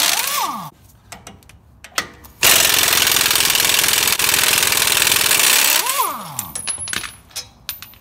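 Pneumatic impact wrench hammering on the 21 mm caliper mounting bracket bolts of a Ford F-250 Super Duty's front brake to break them loose. There is a short run at the start and a longer one of about three and a half seconds starting about two and a half seconds in. Each run ends in a falling whine as the tool spins down, and a few light metallic clicks follow near the end.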